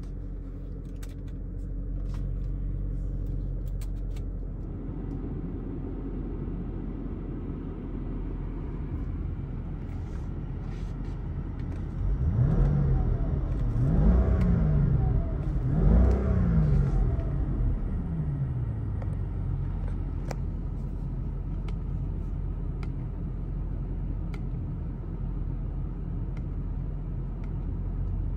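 2003 Mercedes-Benz SL500's 5.0-litre V8 idling in Park, heard from inside the cabin. About halfway through it is blipped three times in quick succession, each rev rising and falling back to idle.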